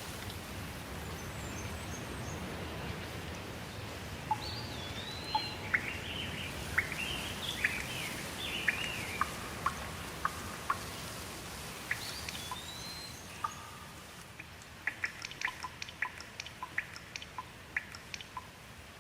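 Steady rain with birds calling over it: looping whistles and quick chirps. The rain eases near the end, and a rapid run of short sharp ticks follows.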